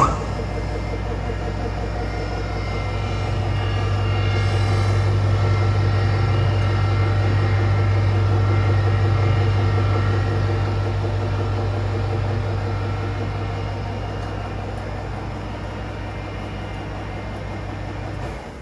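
K+G Wetter MAW 130 mixing grinder running: a steady low motor hum with a stack of whining tones above it. It starts abruptly, grows louder through the middle and cuts off right at the end.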